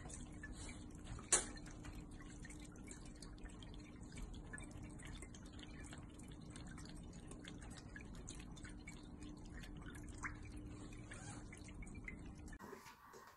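Electric pet water fountain running: water trickling and dripping from its top spout over a steady low hum, with one sharp click about a second in.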